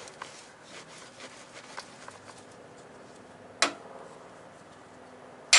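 Hand tools and metal parts being handled: faint light clicks and rubbing, a sharp metallic clink about two-thirds of the way in, and a louder clank right at the end.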